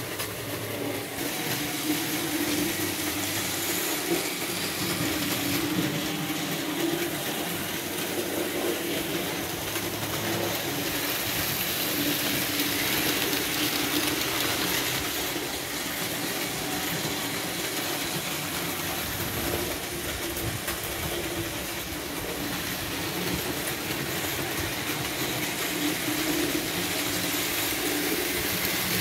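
Märklin model trains running on the layout's metal track: a steady electric whir with a constant low hum.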